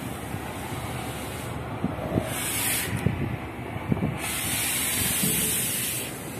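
Oxy-fuel cutting torch hissing as a steel piece is cut, its high hiss swelling in three spells of a second or two over a steady rushing background, with a few light knocks of metal.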